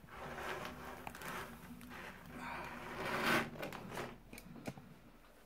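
Faint rustling and crinkling from sour candy strands being handled and pulled apart, with a louder rustle about three seconds in.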